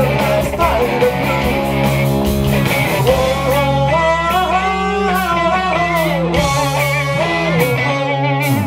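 Live rock band playing, with electric guitars over drums and bass; a lead line bends and glides in pitch in the middle of the passage.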